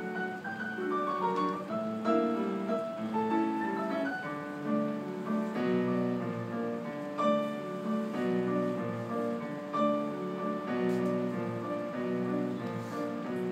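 Grand piano being played live: a continuous flow of melody notes over chords in a classical style.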